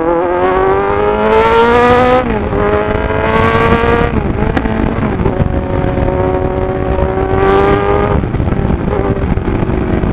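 Kawasaki Z900's inline-four engine accelerating through the gears: its pitch climbs steadily and drops back at each upshift, clearly about two and four seconds in. There are short bursts of rushing noise over it.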